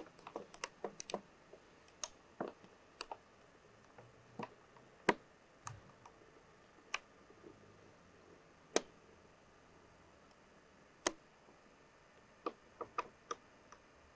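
Irregular sharp clicks and small knocks over quiet room hiss. They come in a quick cluster at the start and again near the end, with a few single louder knocks in between.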